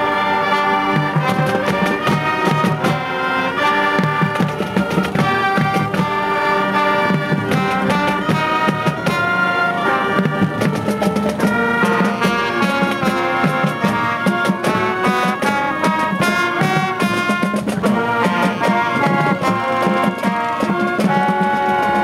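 A high school marching band playing a brass-heavy piece: trumpets and trombones over drums, continuous and loud.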